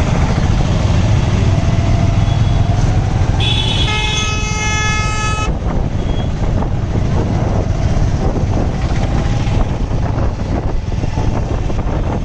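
Steady low rumble of a motorcycle ride on the road, with a vehicle horn sounding once for about two seconds a few seconds in.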